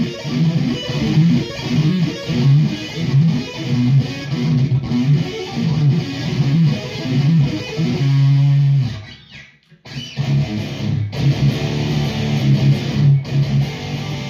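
Ibanez electric guitar through high-gain distortion playing fast, tight palm-muted low riffs. About eight seconds in a low note is held briefly, the playing stops for about a second, then the chugging riff starts again.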